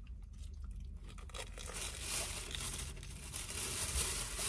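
Crisp crackling and crunching of a bite into the crumb-coated fried crust of a Korean mozzarella corn dog, growing denser and louder from about two seconds in.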